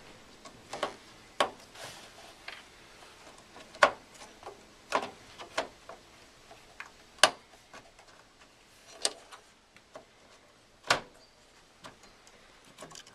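Scattered sharp clicks and knocks, about eight spread irregularly, of a RAM stick being handled and pressed into a motherboard's memory slot: plastic and metal tapping as it is lined up.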